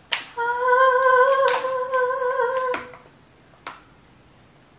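A woman humming one long steady note for about two and a half seconds, with a few short cracks of Dungeness crab shell being pulled apart by hand.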